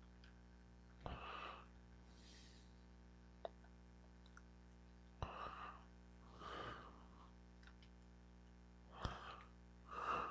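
Several short breaths into a close microphone, some starting with a sharp click, plus a couple of lone clicks of computer keys or a mouse, over a steady low electrical hum.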